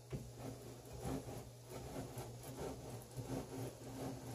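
Carriage of an Atlas TH42 metal lathe being cranked along the bed by its apron handwheel: faint, irregular scraping and clicking from the old, uncleaned slides and rack gearing.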